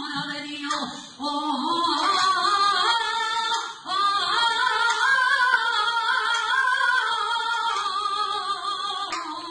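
A woman singing a saeta solo: a slow Holy Week flamenco song of long, ornamented phrases whose pitch wavers and turns. She breaks off for breath about a second in and again about four seconds in, then holds a higher ornamented phrase.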